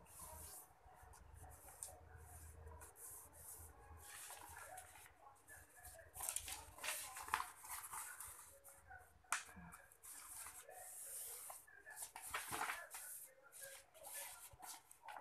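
Faint rustling and crinkling of a sheet of paper being folded and creased by hand, with a few sharp snaps or taps of the paper, the loudest about seven and nine seconds in.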